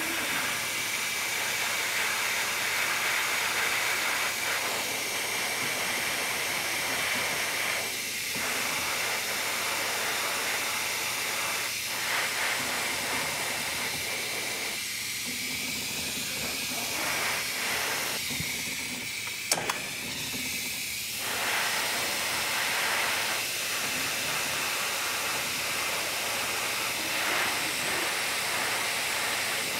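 Airbrush spraying shading paint with a steady hiss of air, the lower part of the hiss thinning briefly a few times as the spray is eased off.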